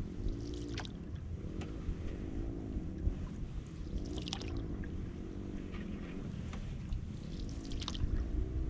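Water lapping against a canoe's hull with a steady low rumble, and a few brief drips or taps spaced a second or more apart.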